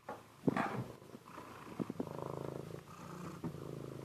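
Domestic cat purring close by, a steady low rumble, with a brief louder sound about half a second in.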